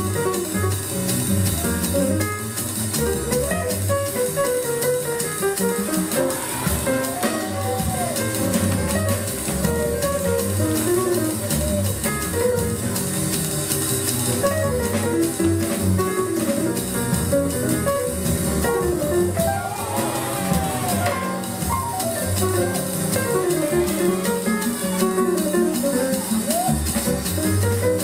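Upbeat jazzy dance music with guitar and drum kit, a melody line with bending notes over a steady beat.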